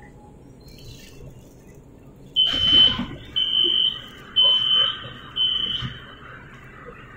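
Door warning beeper of a CSR Zhuzhou AMY light-rail train: four high, steady-pitched beeps about a second apart as the doors open, with a burst of noise under the first beep.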